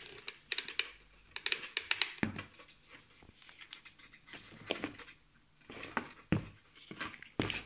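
Hands handling an angle grinder and its packaging: clusters of light clicks and rattles, with dull knocks about two seconds in, near six seconds and near the end.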